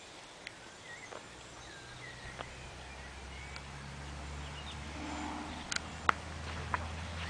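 Quiet outdoor ambience: a low hum that grows steadily louder, a few faint high chirps, and several sharp clicks in the second half.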